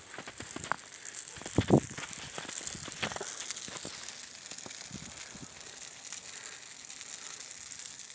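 Old wooden dog kennel burning: the fire crackles with scattered pops over a steady hiss, with one louder knock about a second and a half in.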